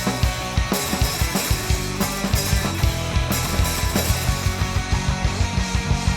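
Instrumental rock band playing: a drum kit keeps a steady, driving beat under guitar and bass, with no vocals.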